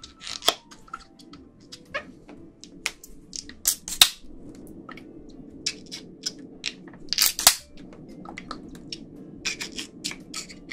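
Teeth biting and tearing at the rubber balloon skin of a turtle-egg ice cream held to the mouth, giving irregular sharp clicks and snaps of the rubber. The loudest snaps come about four seconds in and again a little past seven seconds.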